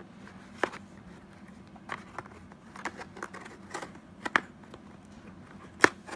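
Irregular clicks and scrapes of the tape across the top of a cardboard box being cut and the box being handled, with the sharpest click near the end.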